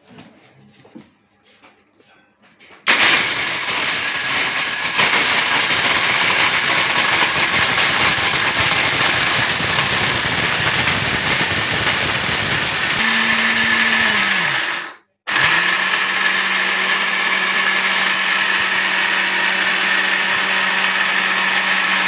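Maharaja Whiteline Powerclick+ 750-watt mixer grinder grinding whole dried turmeric in its small stainless-steel dry-spice jar. It starts loud about three seconds in, winds down and stops for a moment after about twelve seconds, then starts again and keeps grinding.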